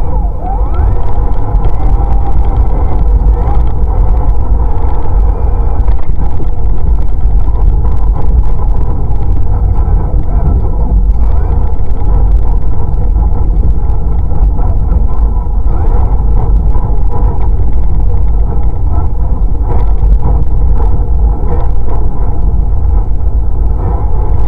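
Radio-controlled car running along pavement, heard from a camera mounted on the car: a steady motor and gear whine over heavy rumble, with scattered clicks and rattles from the chassis and wheels.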